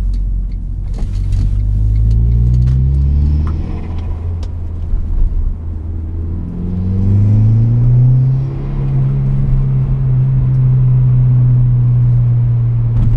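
Smart Forfour Brabus's turbocharged 1.5-litre four-cylinder with an aftermarket cold-air intake, heard from inside the cabin. The revs climb for the first three and a half seconds, then fall away and climb again between about six and eight seconds in, then hold steady.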